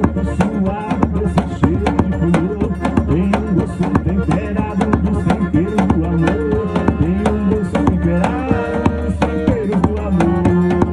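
Forró band playing an instrumental passage: a steady, driving percussion beat under a pitched melody line and bass.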